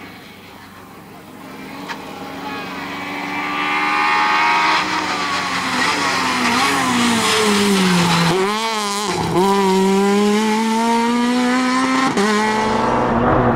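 Opel Adam rally car's engine at full throttle, growing louder as the car approaches. About eight to nine seconds in the revs drop sharply twice and climb again, and near the end the pitch falls as the car passes and pulls away.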